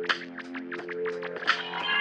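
Background music: an electric rock track with a steady beat and sustained guitar notes.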